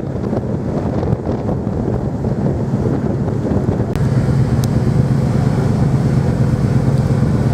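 An engine running with a steady low hum under rushing wind noise on the microphone; the hum grows stronger about halfway through.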